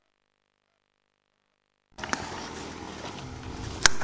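Complete silence for about two seconds, then a faint, steady drone of distant motorcycle engines with open-air background noise, broken by one sharp click near the end.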